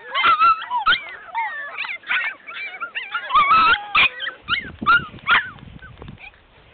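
A litter of French Bulldog puppies crying, many short high-pitched whines and yelps that slide up and down and overlap one another. They die away about five and a half seconds in.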